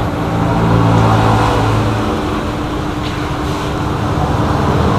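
Battered banana pieces sizzling and bubbling in hot oil in a large aluminium wok as more pieces are dropped in. A steady low rumble runs underneath, louder during the first two seconds.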